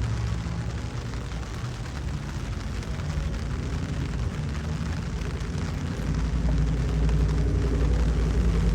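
Car engine and exhaust rumbling at low revs as a car cruises by, growing louder about six seconds in as it comes closer.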